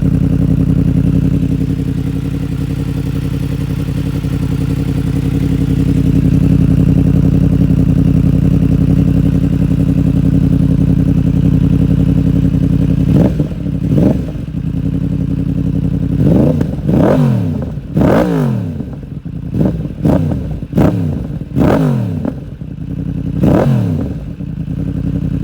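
2020 Yamaha MT-10's crossplane inline-four idling steadily through a catless mid pipe and Akrapovic slip-on silencer. About halfway through it is revved in a series of quick throttle blips, each rising and dropping back, then it settles to idle again near the end.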